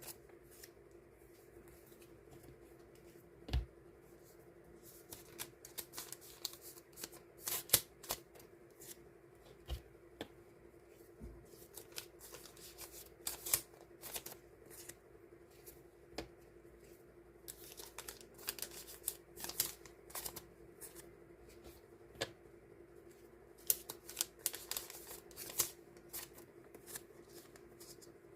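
Die-cut paper stickers being handled and sorted by hand: a run of light, irregular paper rustles, flicks and small taps.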